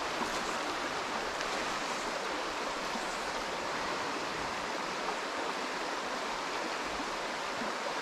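Small mountain stream rushing over rocks: a steady wash of flowing water.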